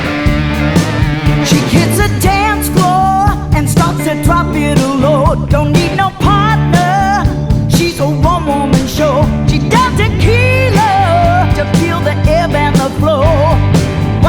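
Blues-rock band playing an instrumental intro: a lead guitar line with bent, wavering notes over bass and drums.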